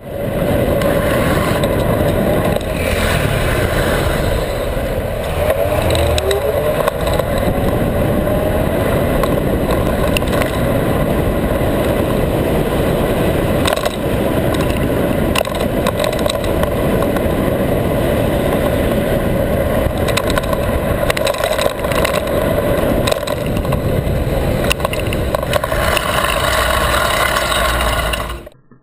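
Vespa scooter running on the move, its engine note steady under dense wind and road noise, with the engine pitch rising for a few seconds around the five-second mark. The sound cuts off abruptly near the end.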